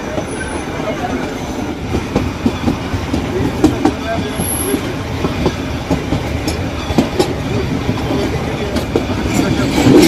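Nilgiri Mountain Railway train under way on its metre-gauge track: a steady running rumble with scattered clicks and knocks of the wheels over the rails.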